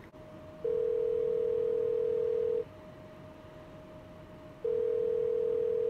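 Telephone ringback tone as an outgoing call rings through: two steady rings of about two seconds each, two seconds apart.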